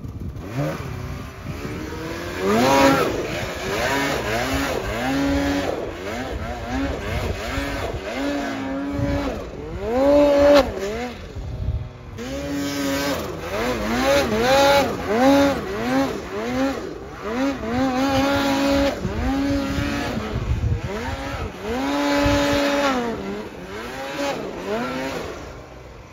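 Mountain snowmobile's two-stroke engine revving in repeated throttle bursts: each one climbs, holds briefly and drops back, about once a second, as the sled is ridden and worked through the snow.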